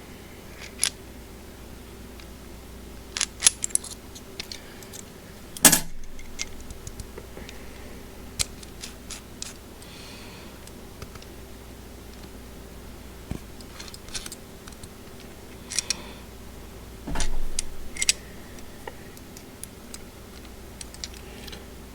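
Scattered small metal clicks and clinks of a hex key and a hole saw arbor being handled as the key is worked at the arbor's set screw, with a louder knock about six seconds in and a short burst of rattling around seventeen seconds.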